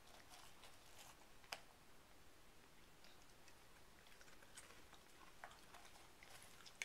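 Near silence, with a few faint light clicks and taps of small plastic cups and a bowl being handled.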